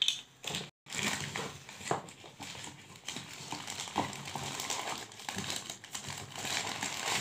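Thin clear plastic bag crinkling and rustling as hands rummage inside it, with a few sharper clicks. The sound breaks off briefly just under a second in.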